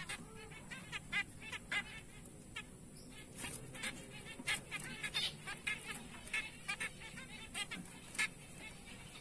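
Several caged zebra finches calling, short calls coming a few each second at irregular intervals.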